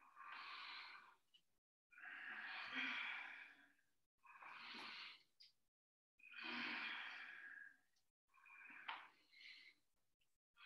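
Deep, faint breaths in and out, five of them about two seconds apart, paced to the arms rising and falling in a squatting breath exercise.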